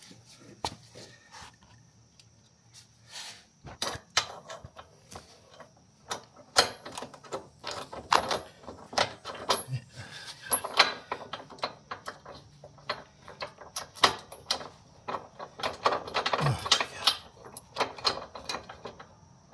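Irregular metal clanks, clicks and scrapes as a mulcher's steel mounting bracket and bolt are forced into line on an ATV plow mount, the gap from an off weld keeping the parts from lining up.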